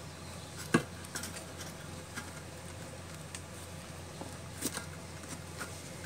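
Light clicks and small metallic clinks as hands work parts inside the open base of a Racold electric water heater, with one sharper click under a second in, over a steady low hum.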